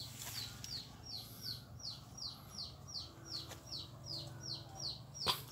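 A bird chirping steadily: a run of short, high notes, each falling in pitch, repeated about three times a second.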